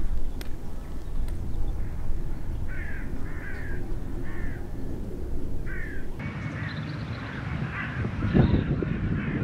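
A corvid cawing four times, short harsh calls spread over a few seconds, over a low wind rumble on the microphone. About six seconds in the sound changes to stronger gusts of wind buffeting the microphone.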